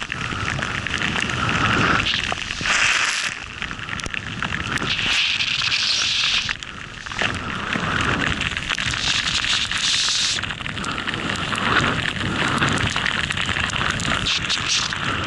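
Wind rushing over an action camera's microphone while riding a snowboard through deep powder snow, with the hiss of the board cutting the snow swelling and easing every few seconds.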